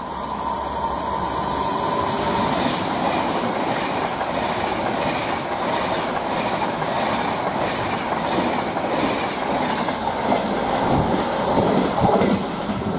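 Class 390 Pendolino electric train passing through at speed, its sound building over the first couple of seconds into a steady rumble with a regular clickety-clack of wheels over rail joints, a little under one a second. Near the end a heavier rumble with a few low knocks takes over.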